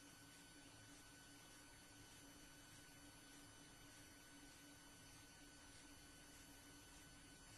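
Near silence: a faint, steady electrical hum over low hiss.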